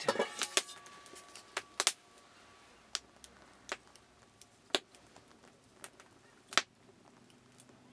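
Sporadic sharp clicks and light clinks, about a dozen spread unevenly, from cooking over an open wood fire with a large aluminium pot.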